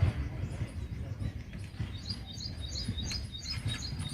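Small birds chirping in quick repeated short calls, over a low rumble.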